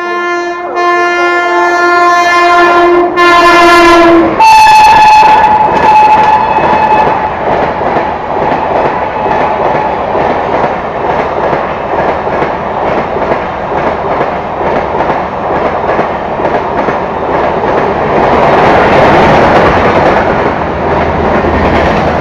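WAP-5 electric locomotive's horn sounding a long low note, then switching to a higher note for a few seconds, followed by the steady rumble and clickety-clack of LHB passenger coaches running past, growing louder again near the end.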